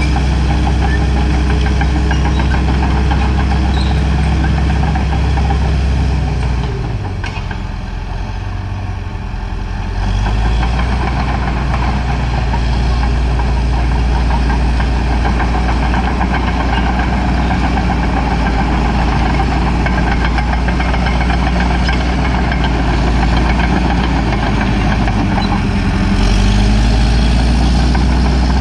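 Caterpillar D4H crawler bulldozer's diesel engine running steadily while working; a quarter of the way in its pitch dips and the sound drops for a few seconds, then near the end the engine speeds up and gets louder.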